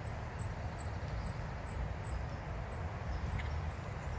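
Insect chirping: short, high-pitched chirps repeating about two to three times a second, over a low, steady outdoor rumble.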